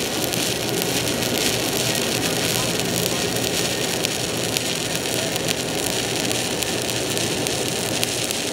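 Stick-welding arc on a 7018 electrode running a bead into a bevel groove in steel plate: a steady, even crackle full of fine spitting ticks.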